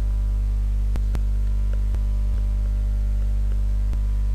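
Steady electrical mains hum, a low buzz with a stack of evenly spaced overtones, with a few faint clicks scattered through it.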